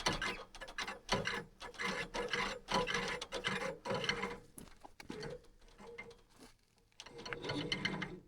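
Rough scraping and rubbing on wood in repeated uneven strokes, a few a second. There is a brief lull about two-thirds of the way through, and the strokes stop abruptly at the end.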